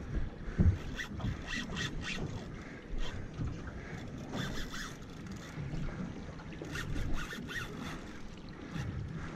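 Small boat drifting on the sea: water lapping against the hull and wind on the microphone, with scattered sharp knocks and clicks, the loudest less than a second in.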